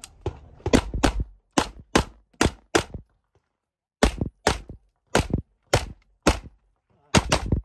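A rapid string of about fourteen gunshots, mostly fired in quick pairs, with a pause of about a second after the sixth shot. This is a competitor shooting a timed practical-shooting stage.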